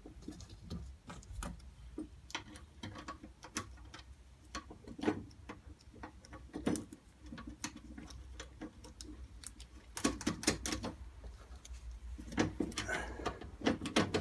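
Scattered metallic clicks and ticks from hand work on a classic Mini's handbrake lever as it is bolted down, with two short runs of quick clicking about ten and thirteen seconds in.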